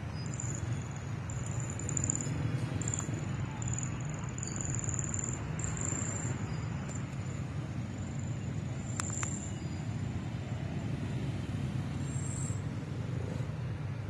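Steady low outdoor rumble, with a thin high-pitched tone coming and going above it and two quick clicks about nine seconds in.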